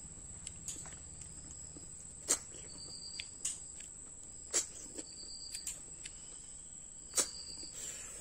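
Small cooked snails sucked out of their shells, a series of short sharp sucks spaced a second or so apart, over a steady high-pitched background tone.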